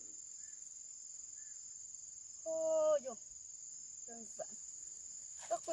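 Steady high-pitched drone of insects in the surrounding vegetation. A person's short call rises above it about two and a half seconds in, and there are brief bits of voice near the end.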